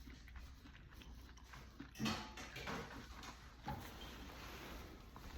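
Close-up mouth sounds of someone eating cereal: irregular chewing and crunching, with a few louder bites spread through it.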